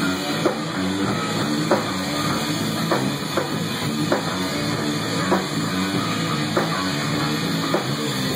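Rock music led by a drum kit, with a steady beat of drum hits about every half second over sustained instrumental notes.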